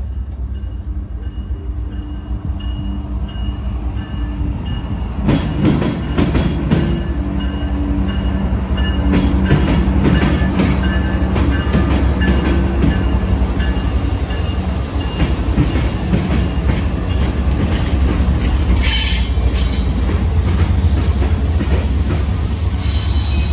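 Train running close by: a steady low rumble with clicking and clatter from the rails, getting louder about five seconds in and staying loud.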